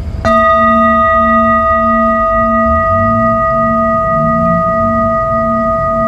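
A large metal singing bowl struck once with a mallet about a quarter second in, then ringing on with several steady overtones. Its low tone wavers about twice a second.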